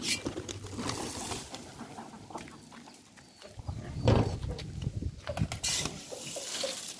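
A mixed flock of hens and pigeons feeding on the ground, with scattered clucking, pecking and brief flurries of wings. A loud low thump comes about four seconds in.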